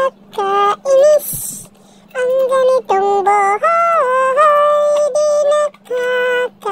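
A song with a high sung vocal line in short phrases of held and gliding notes, broken by brief gaps.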